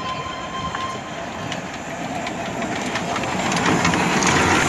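Darjeeling Himalayan Railway steam locomotive No. 788 and its carriages close by, with hissing steam and scattered metallic clicks. The sound grows steadily louder.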